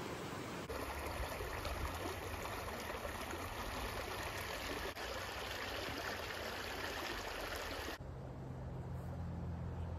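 Shallow mountain creek running over rocks: a steady rushing, rippling water sound. Near the end the water sound drops away, leaving a low rumble.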